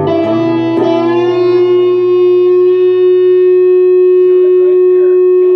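Guitar playing: a run of quick notes, then a single note struck and held, ringing steadily at one pitch for several seconds, with a few faint strums over it near the end.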